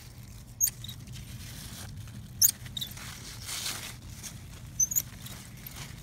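Hand pruning shears snipping cucumber side stems: a few short, sharp, high clicks about two seconds apart, with the leaves rustling as the vines are handled.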